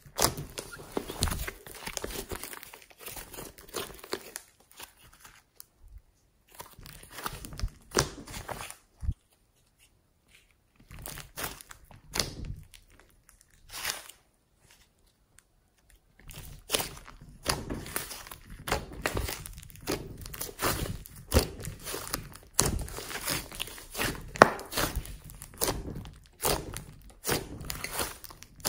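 Hands squeezing and stretching a large mass of glossy slime flecked with small foam beads: irregular wet pops, clicks and crackles, quieter for several seconds in the middle.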